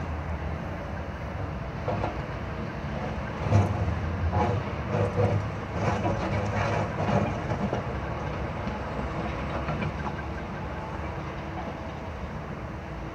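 Caterpillar wheeled excavator's diesel engine running steadily, with a run of knocks and clatters of broken asphalt against the steel bucket from about three and a half to eight seconds in.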